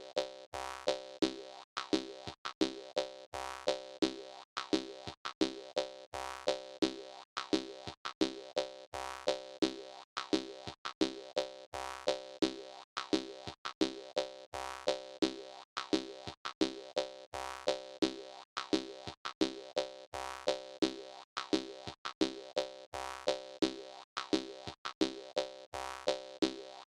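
Jaw harp music: a steady, danceable rhythm of twanging plucks, about three a second.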